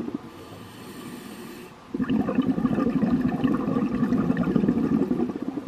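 Scuba diver breathing through a regulator underwater. A soft hiss of inhalation comes first, then about two seconds in a long exhalation of bubbles burbling out past the regulator for about three and a half seconds.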